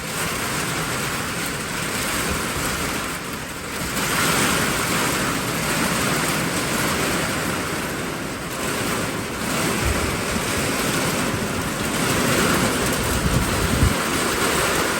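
Heavy rain pouring down in a severe thunderstorm while strong wind gusts, the rush swelling and easing, with wind buffeting the microphone in low rumbles about ten seconds in and near the end.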